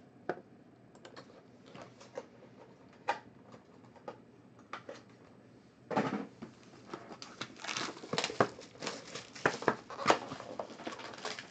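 Trading card packs and cards being handled: a few scattered light clicks at first, then from about six seconds in a dense run of rustling, crinkling and clicks as a foil pack is opened and its cards handled.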